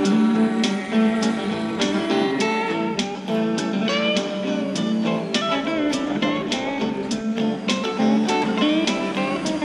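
Background music: guitar notes plucked and strummed over a steady beat.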